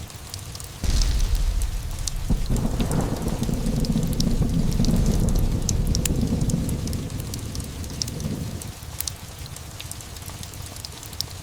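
Thunder rolling over steady rain. A sudden low crack comes about a second in, swells again a moment later, and rumbles on for several seconds before fading away after about eight seconds.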